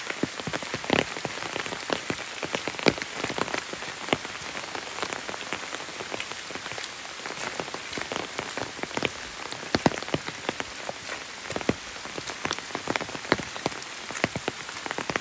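Rain falling steadily, an even hiss with many separate drops striking close by at irregular intervals.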